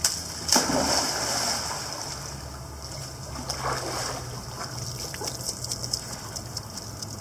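A dog leaps off the pool edge into the water with a sudden splash about half a second in, followed by water sloshing and lapping as the dogs swim.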